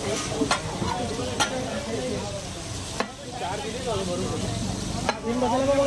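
Blocks of butter sizzling and bubbling as they melt on a hot flat griddle (tawa), with a metal ladle knocking against the griddle several times.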